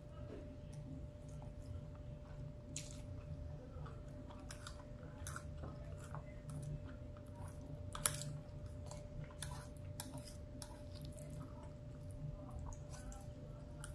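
Close-up chewing and mouth clicks of a person eating a forkful of rice and beans, with occasional taps and scrapes of a plastic fork on a plate. One sharp click about eight seconds in stands out, over a faint steady hum.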